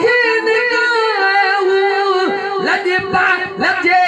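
A man singing a naat unaccompanied into a microphone, holding a long drawn-out note and then sliding through ornamented turns between lines of lyrics.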